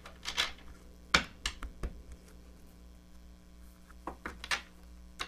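Tarot cards being shuffled and handled: a scattering of short, sharp card clicks and slaps over a steady low mains hum.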